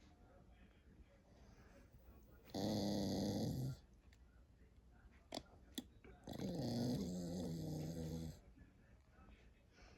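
A sleeping dog snoring: two long, rough snores about four seconds apart, with a couple of brief clicks between them.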